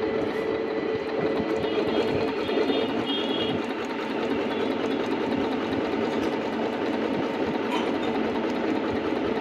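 Singer C5605 computerised sewing machine running steadily, stitching a straight seam through a piece of fabric.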